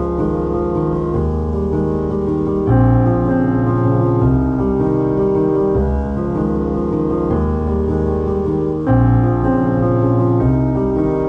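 Background piano music, with a fuller, louder chord about three seconds in and again near the end.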